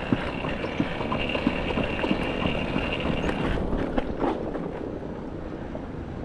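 Footsteps and the tyres of a Yamaha YFZ450R quad rolling on the road as it is pushed by hand, its engine dead. A thin steady high tone sounds through the first half, then stops.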